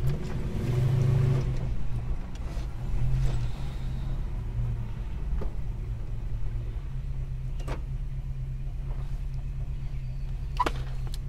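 Holden HK's engine and exhaust running under way, heard from inside the cabin: a steady low drone that swells about a second in and again around three seconds, then settles to an even cruise. A few faint clicks show up along the way.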